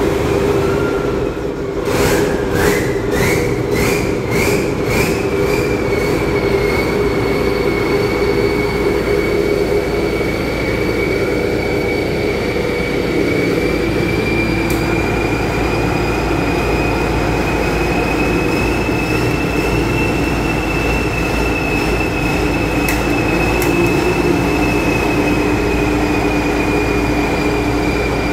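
Custom-built tracked rice combine harvester running loudly, a steady mechanical din topped by a high whine. A couple of seconds in, a run of quick pulses brings the whine up, and it then holds, drifting slowly a little higher and back.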